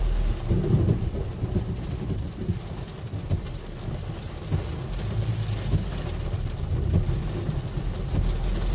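Low rumble of a car heard from inside its cabin as it creeps along slowly, with rain hitting the windshield.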